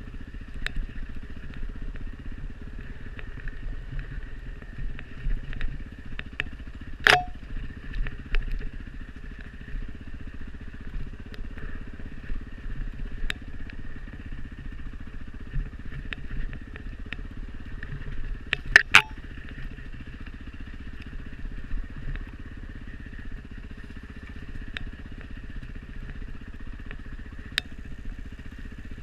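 Dirt bike engine running steadily on a trail ride, with scattered small clicks and clatter and two loud sharp knocks, one about a quarter of the way in and a quick double knock past the middle.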